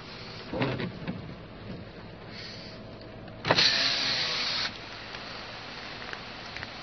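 A car's electric side window motor whirring as the rain-spattered glass is lowered, starting suddenly and stopping abruptly after about a second. A few knocks come before it.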